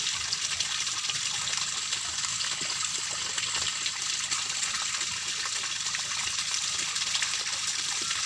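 Pumped canal water gushing steadily into a shallow tarpaulin-lined pond, a continuous splashing rush of water onto water.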